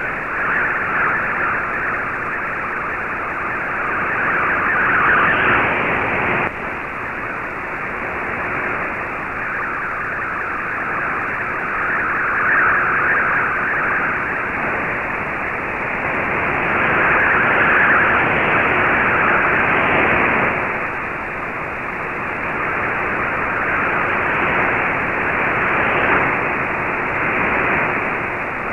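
MFSK64 digital picture transmission received on an Icom IC-R8600 shortwave receiver in AM mode: a dense, hiss-like data signal filling the band up to about 3 kHz, swelling and dipping in strength, with a sudden drop about six seconds in.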